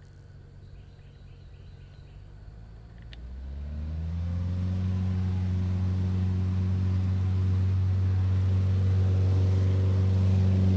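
Super Decathlon's four-cylinder Lycoming engine and propeller at full takeoff power. The steady drone swells in from about three seconds in as the plane rolls closer and lifts off, then holds loud.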